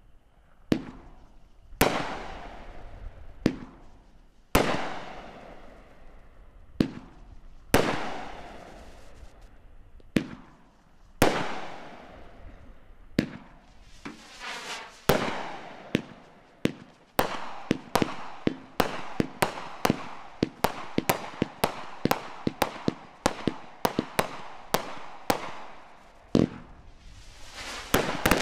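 Red Rhino Fireworks' Pyro World multi-shot firework cake firing. Its sharp bangs, each with a fading tail, come about once a second or more slowly at first, then quicken to two or three a second about halfway through, and a denser rush of noise comes near the end.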